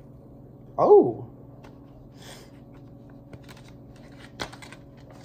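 A short spoken 'oh', then faint taps and rustles of a plastic Blu-ray case being handled and opened, with one sharp click about four and a half seconds in.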